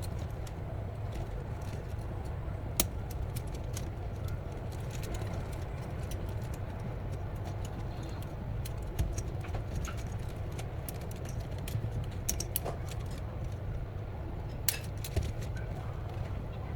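Wind rumbling on the microphone, with scattered irregular clicks and clacks from the plastic joints of a 3D-printed wind-powered walking robot. A few louder clacks stand out about three seconds in, around nine seconds, and twice near the end.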